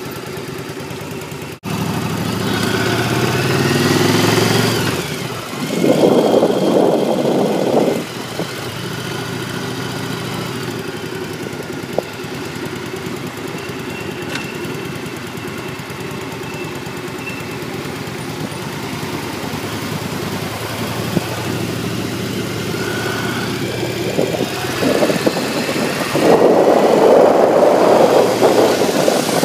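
Motorcycle engine pulling away from a stop, its pitch rising over the first few seconds, then running steadily at road speed. A louder rushing noise comes in twice, about six seconds in and again near the end.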